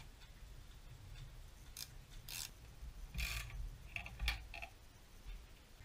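A few short metallic scrapes and clicks as a threaded bushing press tool is turned with a wrench, drawing a rubber bushing into an aluminium BMW E39 rear lower control arm.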